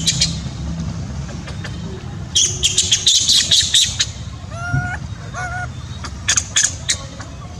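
Animal calls: a flurry of shrill chirps a couple of seconds in, then a few short pitched calls, and another brief shrill flurry near the end, over a steady low background rumble.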